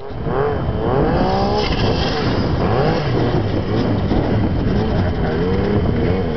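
Snowmobile engine revving up and down as the rider carves through deep powder, its pitch rising and falling again and again over a steady low hum.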